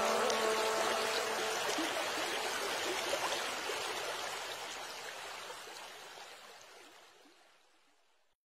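Running water like a stream, a steady rushing haze that fades out gradually to silence about seven and a half seconds in.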